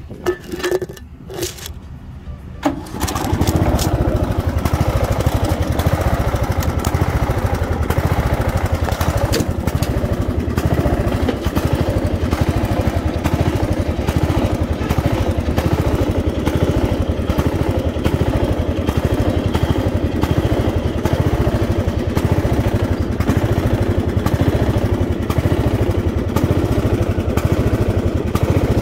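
Racing riding lawnmower's engine running loud and steady with a fast pulsing beat, coming in strongly about three seconds in; before that there are only a few knocks and clicks.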